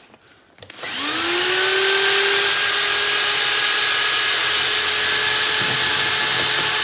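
Cordless drill driving a Wolfcraft drill-powered transfer pump, pumping diesel through to clear the pump. The drill spins up about a second in, its whine rising and then holding steady at full speed.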